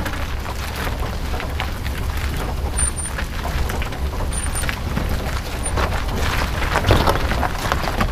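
Wind buffeting the microphone, a steady low rumble, with scattered crunches and scuffs that grow busier near the end.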